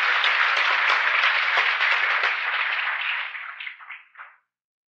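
Audience applause, a dense steady clapping that fades from about three seconds in and has died away by just past four seconds.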